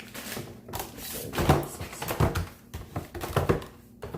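Irregular knocks and clatter of plastic food containers and packages being handled and set down, with a few louder clunks.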